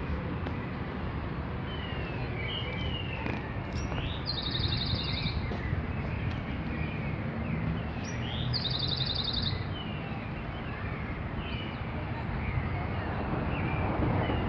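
Birds chirping with many short calls, and two rapid high trills about a second long at about four and eight seconds in, over steady low background noise.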